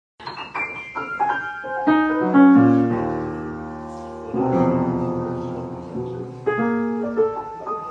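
Grand piano keys pressed by a cat walking along the keyboard: irregular clusters of notes that ring on, moving from the treble down toward the bass. The loudest cluster comes about two and a half seconds in.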